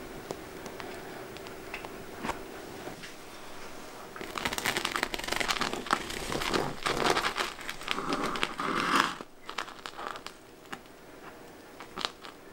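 Knife cutting through a sugar-coated, cream-filled yeast croissant on a wooden board: about four seconds in, a dense run of small crunches and crackles from the sugar crust that lasts about five seconds, with a single tap near the end.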